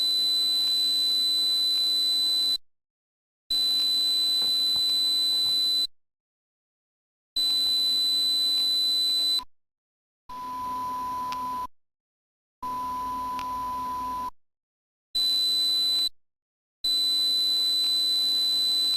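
Electronically generated pure tones for tinnitus masking: a steady high-pitched tone switched on and off in blocks of one to three seconds, with dead silence between them. Two blocks in the middle drop to a lower, softer tone.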